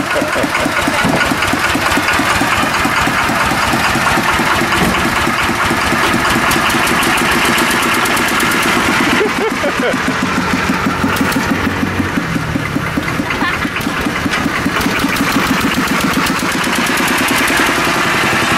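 Kubota single-cylinder diesel stationary engine, fitted in a pickup truck's engine bay, running steadily with an even, rapid chug of firing strokes.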